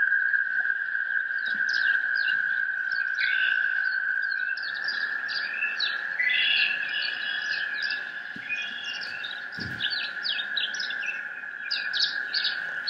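Rapid bird-like chirps and short downward-sweeping tweets, thick and overlapping, over a steady high sustained tone.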